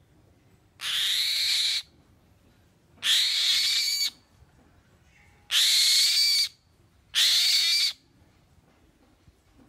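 Black-winged kite giving four harsh, rasping screeches, each about a second long, while mantling with spread wings over its rat.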